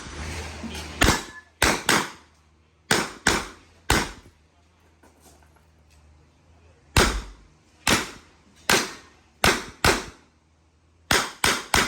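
Handgun shots fired in quick strings of two or three, about fourteen in all, with a pause of about three seconds in the middle.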